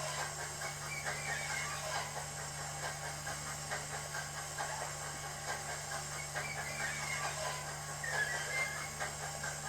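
Recorded steam locomotive sound from a DCC sound decoder, played through the small speaker of an SDS Models Victorian Railways K class model locomotive running on a rolling road: repeated chuffs and steam hiss over a steady low hum.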